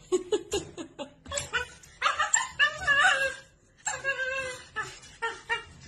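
A dog yipping and barking in short, quick calls, with a longer wavering whine about two seconds in.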